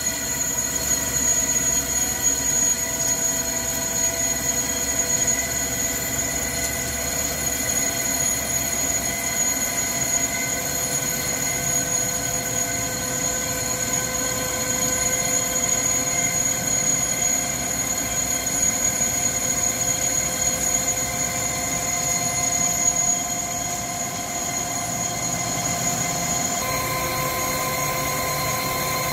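Hankook Protec 9-NC CNC lathe boring the inside of a metal cylinder bracket with a carbide-insert boring bar: steady machine whine with several held tones over cutting noise. The tones shift slightly near the end.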